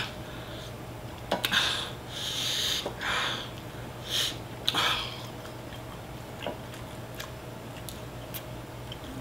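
A woman sniffing and drawing sharp, hissing breaths five or so times in a row, in reaction to the burn of very spicy chicken; after about five seconds only faint small ticks remain.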